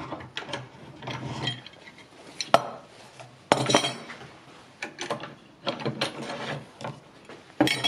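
Steel G-clamps being unscrewed and taken off a wooden batten on a workbench, with the screw threads rattling and metal clunking against wood. There is a sharp knock about two and a half seconds in and a louder clatter a second later as a clamp is set down on the bench.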